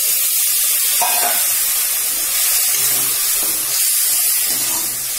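Water poured from a steel mug into a hot kadai of fried potato masala, hissing and sizzling loudly as it hits the hot oil: the fried spice base being deglazed to make the gravy.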